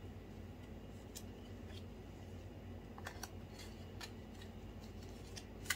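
Faint handling of the phone box's paper documentation sleeve, a few light scattered clicks and rustles over a low steady room hum.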